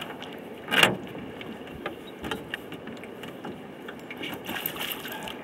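Knocks and clunks of a small aluminium boat's hull and seats as people move about in it: one loud thump about a second in, then light scattered knocks and rattles.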